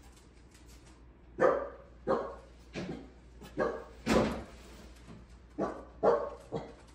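A corgi barking: about eight short, sharp barks in two runs, starting about a second and a half in, with a short pause near the middle.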